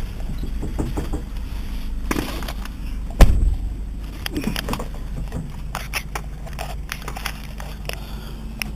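Car cabin noise while driving: a steady low road and engine rumble, with scattered small knocks and rattles and one loud thump about three seconds in.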